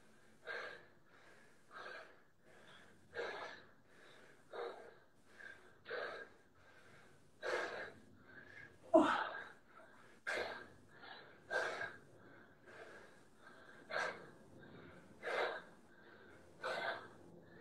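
A man breathing hard in short, sharp exhalations, about one every second or so, from the exertion of repeated deep squats; one breath about nine seconds in is louder than the rest.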